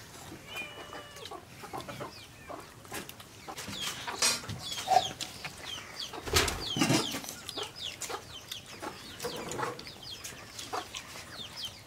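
Chickens clucking and chirping, with many short high chirps that slide down in pitch scattered throughout. A few light knocks and clicks, and a louder rustle about six and a half seconds in.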